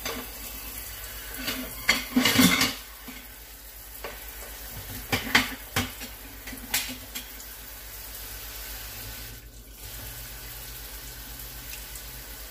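Kitchen clatter: dishes and utensils knocking and clinking a few times, loudest about two seconds in, then only a steady faint background hum for the rest.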